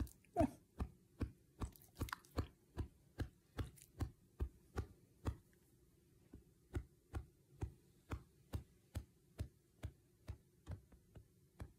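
Dog making soft rhythmic mouth smacks, about two and a half a second, with a brief pause about halfway through. At the start a short falling whine ends a yawn.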